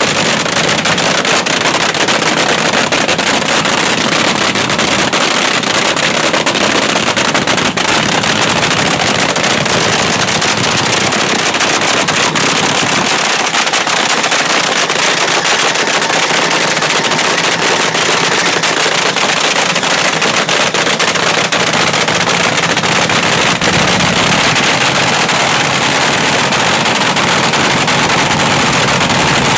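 Supercharged V8 of a front-engine dragster idling through open zoomie headers: a loud, rapid, steady crackle of exhaust pulses.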